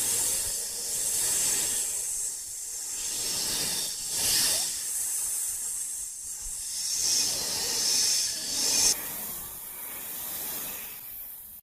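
A rushing hiss played as a sound effect. It swells and eases every second or two, thins out about nine seconds in, and cuts off abruptly at the end.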